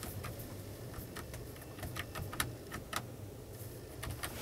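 Buttons on a Mercedes-Benz Audio 15 radio head unit being pressed: a run of small, irregular plastic clicks over a faint steady low hum.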